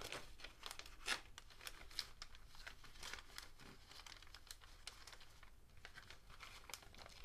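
Clear plastic bag crinkling and rustling in soft, irregular strokes as a stack of slippery paper release sheets is worked into it, one louder crinkle about a second in.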